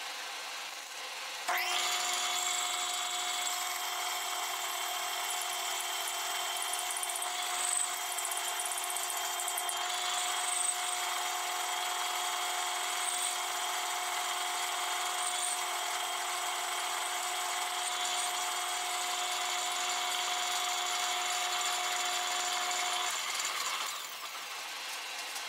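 Metal lathe cutting a naval brass gear blank. The spinning chuck and the tool shaving brass make a steady hiss with several steady ringing tones. It starts abruptly about a second and a half in and drops back near the end as the cut finishes.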